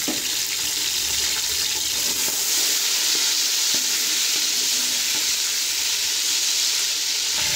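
Ginger-garlic paste sizzling in hot oil with fried onions in a steel pot, the sizzle growing stronger about two and a half seconds in. A metal spoon stirring gives a few faint scrapes.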